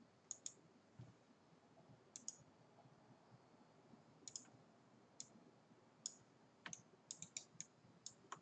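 Faint computer mouse clicks: scattered single and double clicks, then a quicker run of several about seven seconds in, over near-silent room tone.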